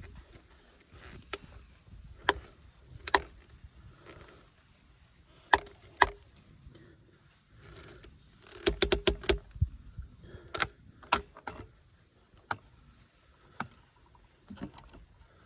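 Plastic plumbing fittings and tools being handled: scattered sharp clicks and knocks, with a quick run of about six clicks just past the middle.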